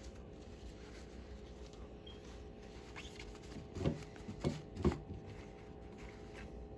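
Quiet handling of shotgun parts, with three short knocks close together a little past the middle.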